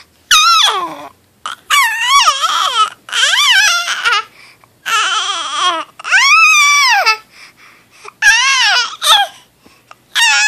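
Baby vocalizing, a string of about eight high-pitched squeals and coos, each under a second long and sliding up and down in pitch, with short pauses between them.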